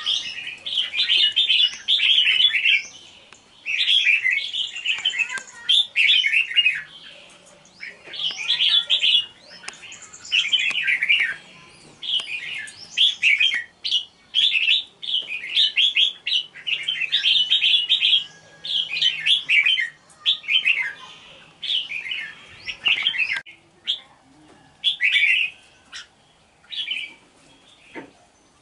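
Red-whiskered bulbul singing: a string of short, bright chirping phrases, one after another, that come shorter and further apart over the last several seconds.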